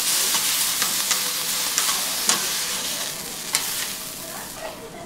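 Thin-sliced meat sizzling hard on a hot flat iron griddle as it is stirred and turned with a spatula and tongs, the utensils clicking and scraping against the plate. The sizzle slowly dies down toward the end.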